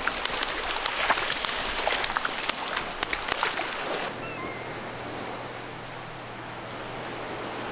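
Shallow surf washing in over the sand and around wading feet, with splashing. About four seconds in it cuts abruptly to a quieter steady low hum with a few faint high chirps.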